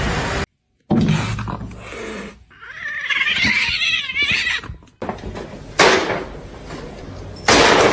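A cat meowing: one wavering meow about three seconds in, inside a run of short clips that cut in and out abruptly.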